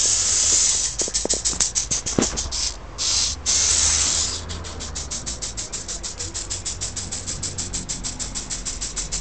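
A small tracked hobby robot's motors running: rushes of hissing noise, then a steady rapid ticking about seven or eight times a second from about four and a half seconds in.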